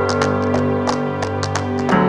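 Background music: a guitar-led instrumental with held chords and a light steady beat.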